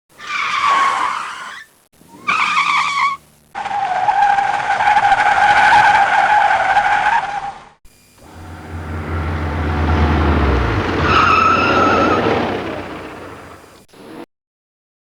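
A car braking hard and skidding, four separate high squealing screeches. The second is short and the third is long and steady. The last comes over a low engine rumble that drops in pitch as the car slows, then stops abruptly.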